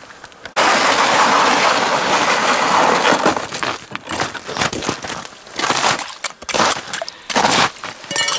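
Loud crunching of snow and ice close to the microphone: a continuous stretch that starts suddenly, then short separate crunches.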